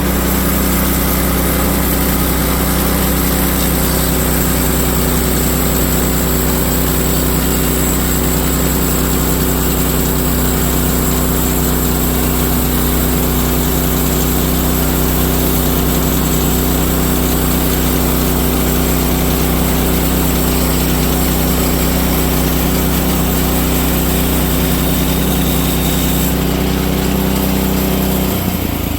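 Small gasoline engine of a portable bandsaw mill running steadily at a constant speed. Its note changes shortly before the end.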